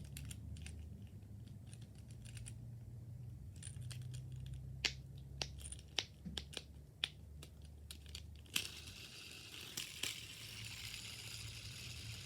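Small silicone bubbles of a push-pop fidget being pressed, giving scattered single clicks and pops. About two thirds of the way in, a steady hiss comes in.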